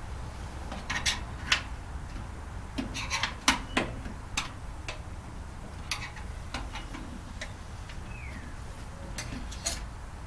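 Irregular sharp clicks and clinks of metal parts and tools being handled while a microwave oven is dismantled, over a steady low hum, with one short falling squeak about eight seconds in.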